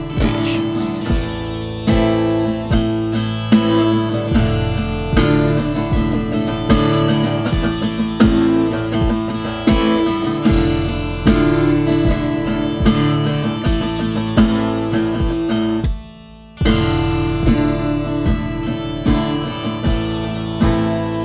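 Instrumental passage of a band's song: strummed guitar over a regular beat. It drops out for a moment about sixteen seconds in, then comes back.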